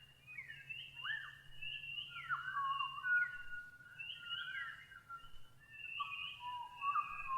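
Birds singing: a run of clear whistled notes that slide up and down in pitch, several phrases overlapping.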